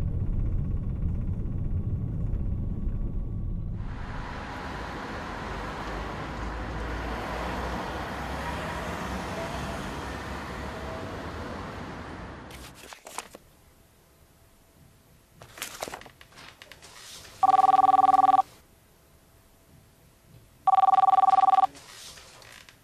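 Steady rumble and hiss of a train running, which dies away about halfway through; then a mobile phone rings twice, two loud electronic rings about a second long and about three seconds apart.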